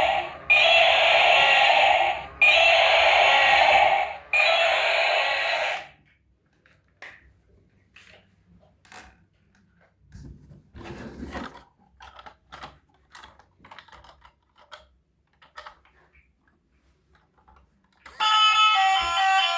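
Battery-powered toy vehicle sounds: a loud electronic noise repeating in bursts of about two seconds, stopping about six seconds in. Then scattered small plastic clicks and clacks of toys being handled, and near the end an electronic melody starts.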